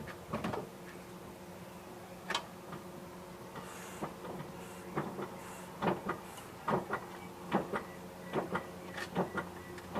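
Rear brakes of a 2003 Toyota Camry clicking and knocking as the brake pedal is pumped repeatedly, pushing the caliper piston back out against new pads. A few clicks at first, then about one a second from halfway on.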